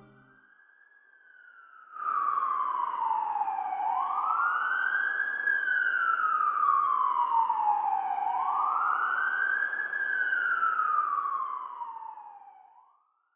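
Police car siren wailing, rising and falling slowly in pitch with each sweep taking about four to five seconds. It starts faintly, jumps louder about two seconds in, and fades away near the end.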